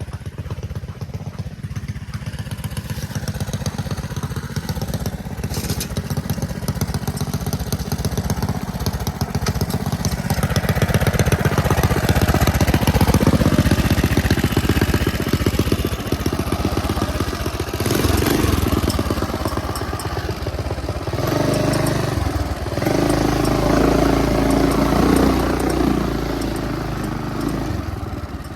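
Small motorbike engine running while being ridden. It gets louder partway through, and its note rises and falls in the second half.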